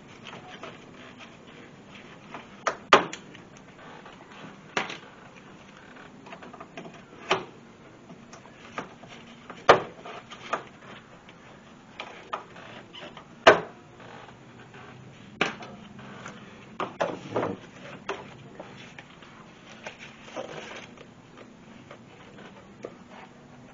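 Plastic push-clips being pried loose with a screwdriver and plastic engine-bay trim being handled: scattered, irregular clicks and knocks, about a dozen, the sharpest three spread through the middle.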